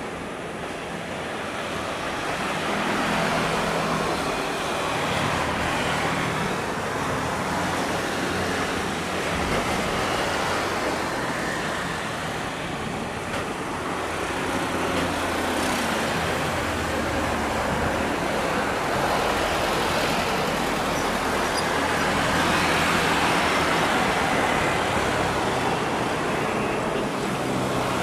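Boeing 787-8 Dreamliner jet engines on landing approach: a steady, broad jet noise that grows slowly louder, with a low hum underneath.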